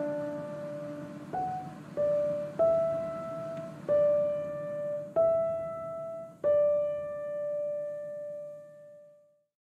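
Slow solo piano background music: six single notes struck one after another at an uneven, unhurried pace, each ringing and fading, the last one held and dying away near the end.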